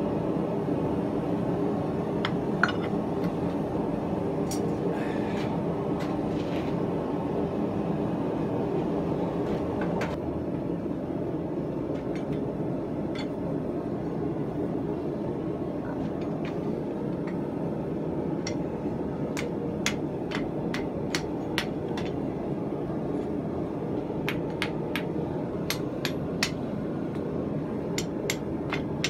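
Steady low roar of a running forge, with scattered light metallic clinks and taps of steel on steel. The clinks are few at first and come more often in the second half.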